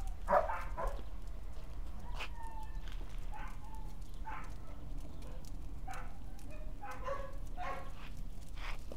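Dogs at play giving short yips and whines, about a dozen brief calls spread through, some drawn out into a thin held whine.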